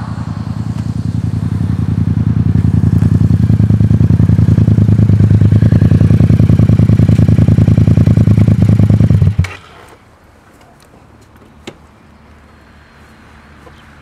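Yamaha MT-07's parallel-twin engine through an unbaffled Akrapovič exhaust, growing louder as the bike pulls up close, then idling with a loud, even pulsing beat. It is switched off suddenly about nine and a half seconds in.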